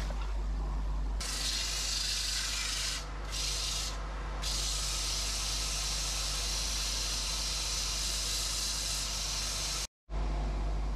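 Wood lathe running with a steady low hum while the spinning ash handle on it is sanded, giving a steady hiss that starts about a second in and briefly drops away twice. The sound cuts out abruptly near the end.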